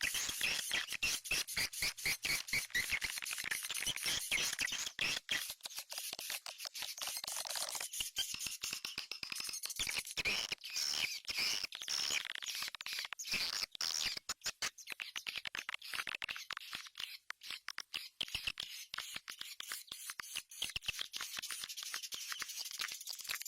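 Swiftlets twittering, a dense stream of rapid chirps and clicks with short sparser gaps partway through.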